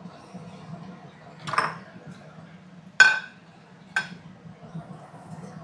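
Metal kitchen utensils clinking against pots and pans: three sharp, ringing clinks about a second apart, the middle one loudest, over a steady low hum.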